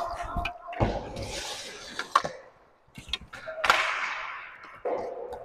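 Inline roller hockey play: sharp clacks of sticks hitting the puck, with a loud hit near the middle that rings on through the hall, and brief shouts from players.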